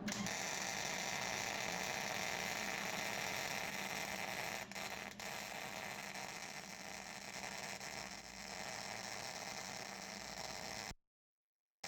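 MIG welding arc buzzing and crackling steadily from a Hobart Handler 140. It breaks off briefly twice about halfway through, then stops suddenly near the end.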